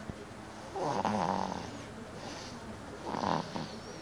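Snoring in sleep: two snores, a longer, louder one about a second in and a shorter one near the end.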